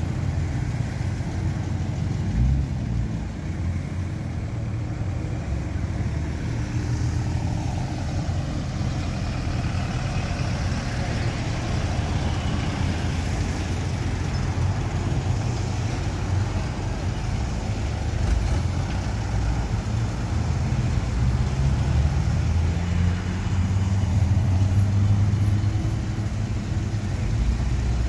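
Cars and trucks driving slowly past one after another, with a steady low engine rumble throughout. The rumble swells louder near the end as a Chevrolet Camaro Z28's V8 rolls by.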